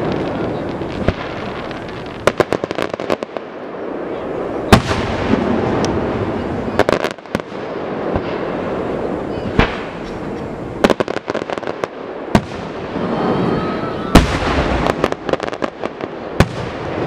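Fireworks display: aerial shells bursting in irregular sharp bangs and clustered crackling, over a continuous rumble, with the two loudest bangs about a third of the way in and near the end. A thin gliding whistle rises just before the last big bang.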